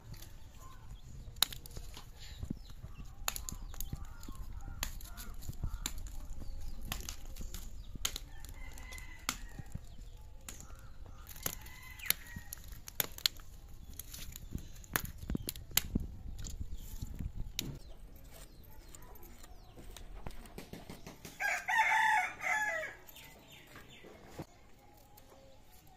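A rooster crows once, loudly, about three quarters of the way in, in two or three pitched parts. Earlier there are scattered light clicks and knocks over a low background rumble.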